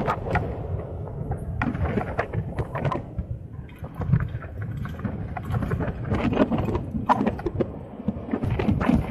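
Wind noise on the camera's microphone while riding an electric kick scooter, with frequent small knocks and rattles.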